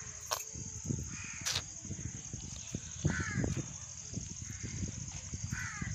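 Crows cawing several times, a few seconds apart, over the soft scraping and patting of a hand mixing pearl millet flour dough in a steel bowl. A steady high-pitched whine runs underneath.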